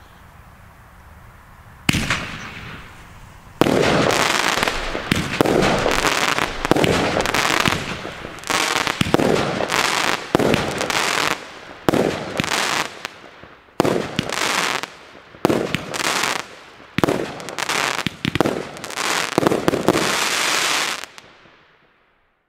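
Bonfireworks Whispering Waves, a 16-shot 25 mm crackling fireworks battery, firing. A first shot comes about two seconds in. Then a rapid run of shots and dense crackling star bursts goes on for about eighteen seconds and dies away near the end.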